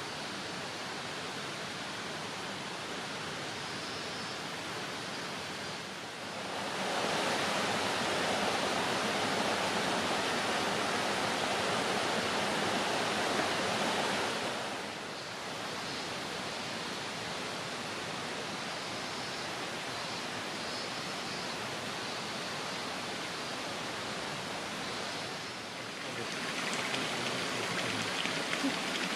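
Steady rush of flowing water, like a stream, that gets louder about six seconds in, drops back about halfway through and rises again near the end.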